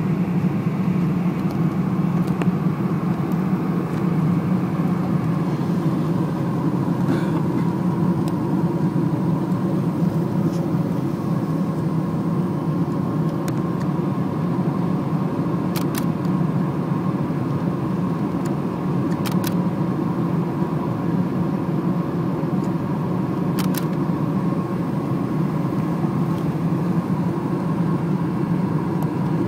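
Steady cabin noise of a Boeing 747-400 on final approach with flaps extended, heard from a window seat over the wing: a deep rush of its Rolls-Royce RB211 engines and airflow, with a faint steady whine. A few faint ticks sound about halfway through and later.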